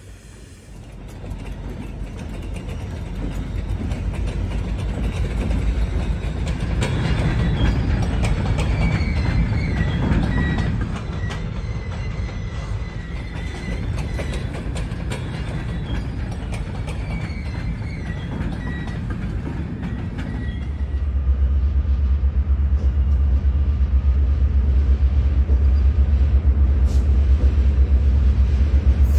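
A freight train of covered hopper cars rolling along the rails, building to a steady rumble, with thin high wheel squeals through the middle. About three-quarters of the way in, a deep steady low rumble sets in and grows louder.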